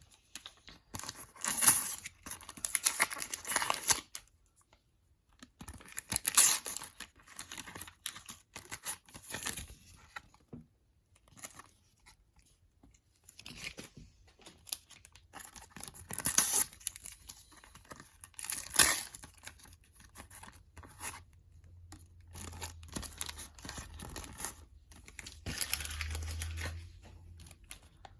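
Sticker and card packets being torn open by hand, their wrappers crinkling and rustling in separate bursts every few seconds with short quiet pauses between.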